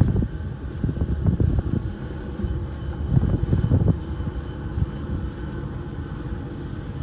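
Wind buffeting the microphone in gusts, strongest in the first four seconds, over a steady engine drone.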